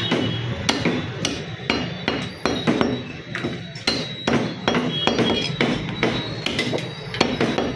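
Butcher's cleaver chopping through mutton and bone on a chopping block, a quick uneven run of sharp chops, about two to three a second.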